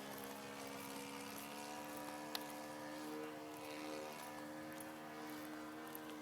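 Kyosho Pitts S-2 radio-controlled model biplane's engine running steadily in flight, its pitch drifting slightly up and down as the plane moves around. A single sharp tick sounds about two seconds in.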